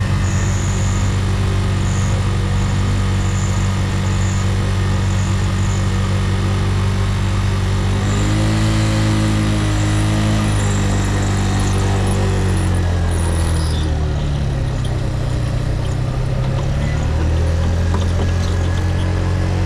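Motorcycle engine running at low speed; its pitch rises about eight seconds in as the bike pulls forward, holds for a couple of seconds, then drops back, with a second smaller rise and fall a little later.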